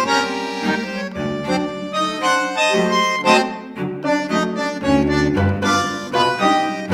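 Background music: an instrumental tune of held melody notes over bass notes.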